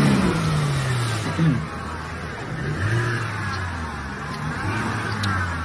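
A Toyota Land Cruiser 70-series engine revs under load while the truck struggles in deep, flowing floodwater. The engine pitch falls in the first second, then holds with small rises, over the rush of muddy water. The struggle is taken to mean the truck has no differential locks.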